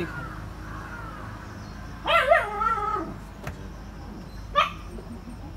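A dog whining and yelping: a wavering whine about two seconds in, then a short yelp near the end.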